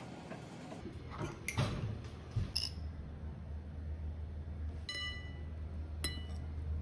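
Fruit slices being slid and scraped off a plastic cutting board into a ceramic bowl, a few short rustling, scraping sounds. Then a low steady hum comes in, and near the end there are two ringing clinks of metal cutlery against the ceramic bowl about a second apart.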